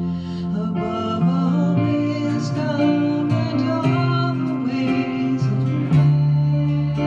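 A live worship song: acoustic guitar with held keyboard notes underneath and voices singing the melody.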